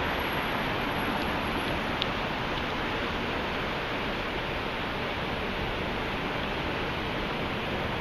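Steady, even outdoor city din with no distinct source standing out, and a faint click about two seconds in.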